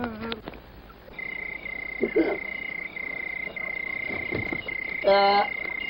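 Night chorus: a steady high-pitched trill sets in about a second in and runs on with brief gaps. Near the end a goat gives one short, wavering bleat.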